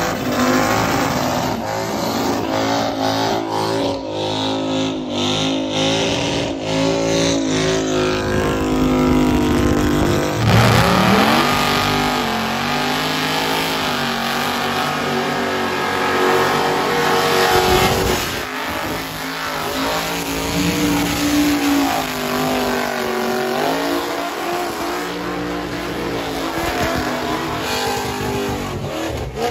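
Engines of burnout cars and trucks held at high revs while their rear tyres spin and smoke, the revs swelling and dropping, with a sharp climb in revs about ten seconds in.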